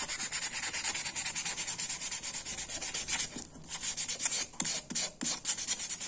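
320-grit sandpaper rubbed in rapid scratchy strokes over the translucent plastic scale of a Victorinox pocket knife, evening out the surface. The strokes break off briefly about three and a half seconds in, then come back more spaced out.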